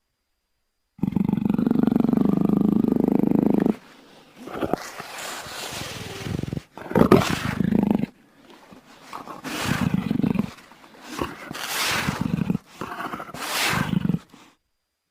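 Big cat roars and growls played as a string of separate clips. About a second in comes a steady low growl lasting nearly three seconds that cuts off sharply, then about five shorter roars, each a second or two long.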